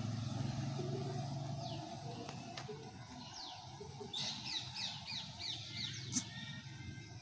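Birds calling, with a quick run of about six short falling notes about four seconds in and a few single notes before it, over a faint steady low hum that fades after about two seconds.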